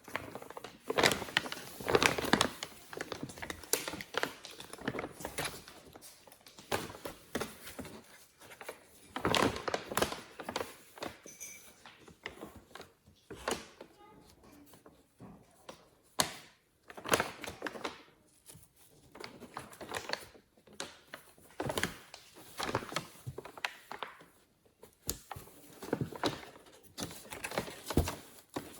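A rustling plastic bag crinkling and crackling in irregular bursts, with short quiet gaps, as kittens paw at and pounce on it.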